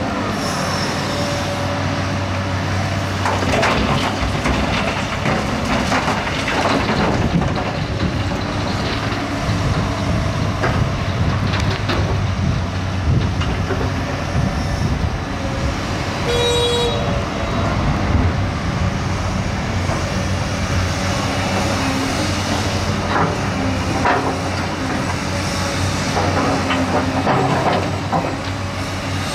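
Heavy diesel earthmoving machinery running steadily, with scattered metal clanks and squeals over the engine and a brief high tone about halfway through.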